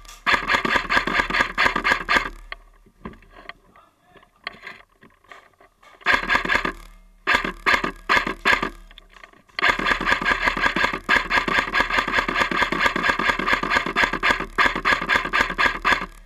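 Airsoft electric gun (AEG) firing full-auto in long bursts of rapid shots, with a lull of scattered single shots between the first and second bursts.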